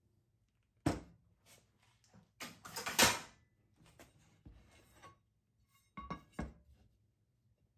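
Hand-abrading strokes on the edge of a teak block: a sharp knock about a second in, then a loud run of scraping strokes around the middle, with a few fainter strokes after and two more near the end.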